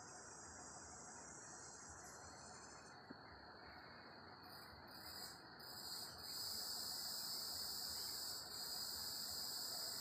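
Insects chirring in a steady high-pitched chorus, growing louder about six seconds in.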